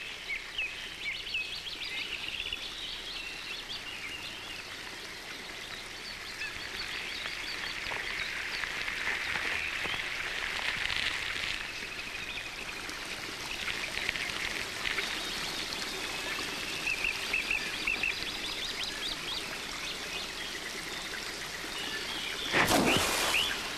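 Lakeshore wildlife ambience: a steady watery hiss with many quick high chirps and calls running through it, and a short louder rush of noise near the end.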